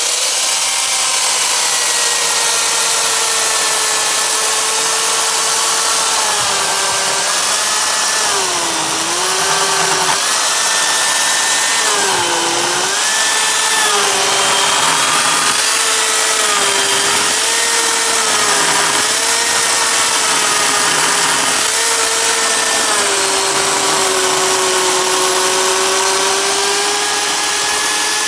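Ryobi RCS2340B corded electric chainsaw running at full speed, a steady motor-and-chain whine. Its pitch sags and recovers several times, deepest about nine and twelve seconds in, as the chain bogs into a log while cutting.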